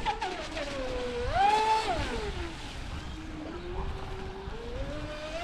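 Traxxas Disruptor RC boat's electric motor and drive whining as the throttle is worked. The pitch falls, jumps up about a second in, drops again around two seconds, holds low, then climbs near the end.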